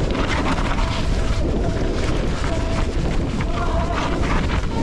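Mountain bike rolling down a rough, wet trail, heard on an action camera: a steady rumble of tyres and frame over the dirt and rocks, with wind on the microphone and a few brief faint squeaks.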